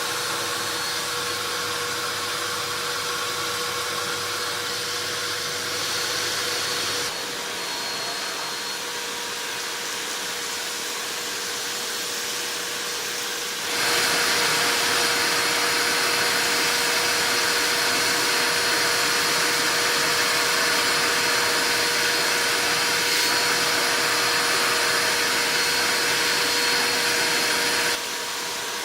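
Amstrad VC3025 bagless cyclonic cylinder vacuum cleaner running steadily with a constant whine. Its loudness drops a little about 7 seconds in, jumps up sharply about 14 seconds in, then drops again near the end.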